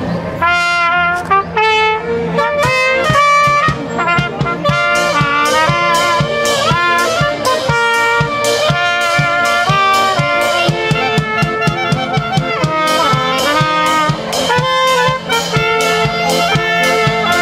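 Live band music: a brass lead plays a quick, lively melody over a steady beat.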